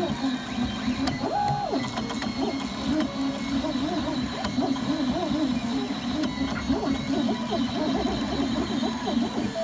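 MakerBot 3D printer running a print, its stepper motors whining in quickly shifting pitches as the extruder head moves back and forth laying down infill. A short higher steady note sounds about a second and a half in.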